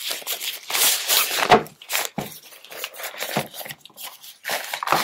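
Cardboard box and plastic packaging being handled: irregular rustling and crinkling, with a sharper knock about a second and a half in.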